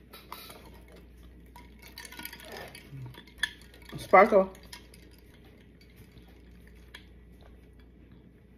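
Light clatter of dishes and cutlery being handled, with scattered clicks and a short, loud pitched sound about four seconds in.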